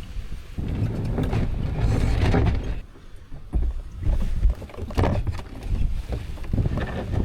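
Kayak paddle strokes, the blades swishing and splashing through the water every second or two. Wind buffets the microphone underneath as a low rumble.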